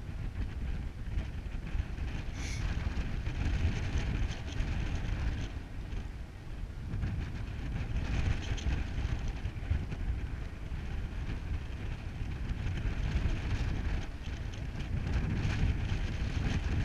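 Wind buffeting the microphone: a gusty low rumble that rises and falls. Brief high squeaks come about two and a half seconds in and again around eight seconds.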